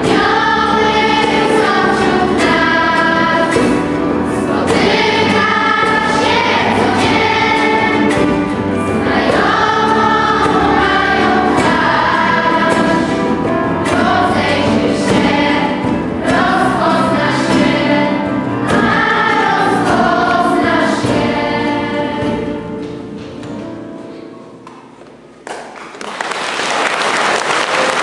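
Children's and youth church choir singing a hymn in unison, the song fading out about 24 seconds in, followed by audience applause breaking out near the end.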